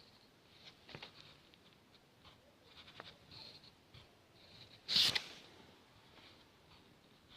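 Drawing on paper: faint, intermittent scratchy strokes of a pen or pencil, with a short, louder scrape about five seconds in.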